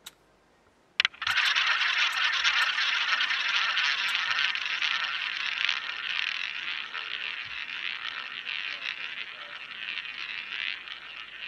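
Roulette ball spun by the dealer: a sharp click about a second in as it is launched, then the ball rolling fast around the track of the wooden roulette wheel, a steady rushing sound that slowly fades.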